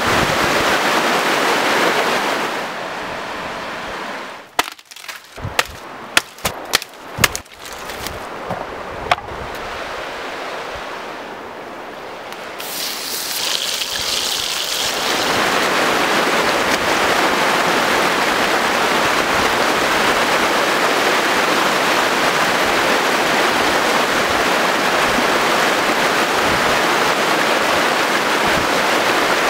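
Shallow river rapids rushing over rocks, a steady, even water noise. About four seconds in the rush gives way to a run of sharp crackles and pops lasting several seconds; then the water rush returns and holds.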